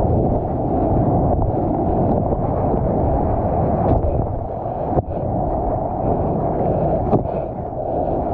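Muffled, steady rush of sea water and wind on an action camera riding at the water's surface, with sloshing and a few small knocks.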